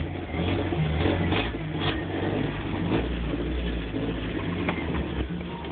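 Jeep engine running with an exhaust leak: a steady low engine sound with a few sharp ticks standing out over it.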